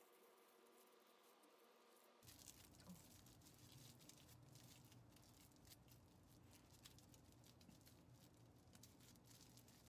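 Faint crinkling and crackling of plastic cling wrap as a wrapped tortilla roll is rolled and its ends are twisted tight.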